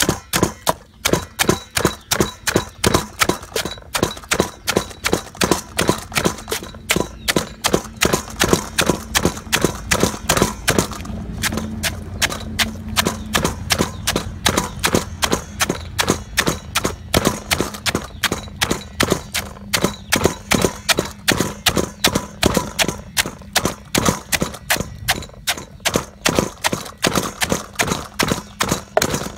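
Wooden pestle pounding crabs in a wooden mortar, crushing the shells. The knocks are steady and regular, about three a second, and go softer for a few seconds about eleven seconds in.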